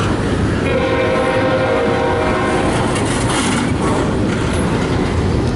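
Double-stack container freight train passing close by: the loud, steady noise of its wheels and well cars running over the rails. A train horn sounds for about two seconds near the start.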